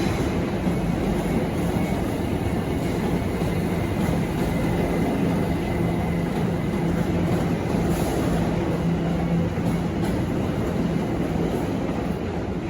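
Electric train at a station platform, a steady low hum with no change in speed or level.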